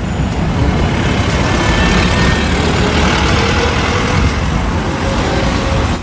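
Bus engine running, a steady rumble with road noise, which cuts off suddenly at the end.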